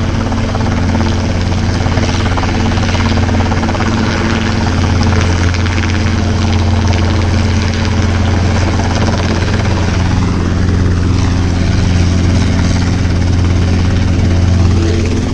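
Helicopter flying low directly overhead to land, its rotor making a crazy loud, steady clapping.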